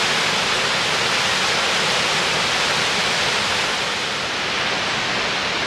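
A waterfall cascading over rocks: a steady, unbroken rush of falling water.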